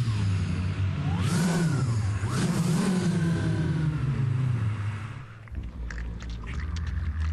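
Human voices imitating a car engine revving, in rising and falling swoops, for Honda Civic advertising sound effects. About five and a half seconds in this gives way to a patter of quick clicks and taps over a low hum.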